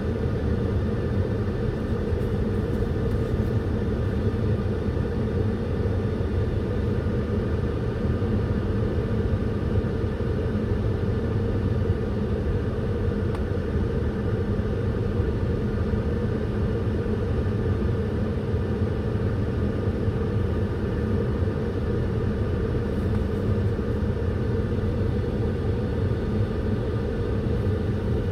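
Steady low rumble with a constant droning hum, unchanging throughout.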